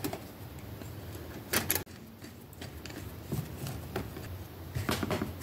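Small metallic clicks and rattles of a rear drum-brake rod and its adjuster nut being fitted by hand at the brake arm, with a couple of sharper clicks about a second and a half in.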